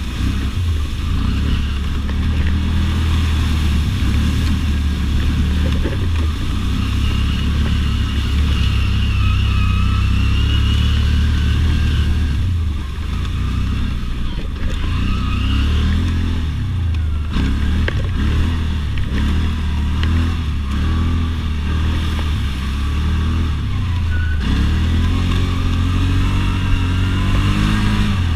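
ATV engine running as it is ridden, its pitch rising and falling with the throttle, easing off briefly about halfway through.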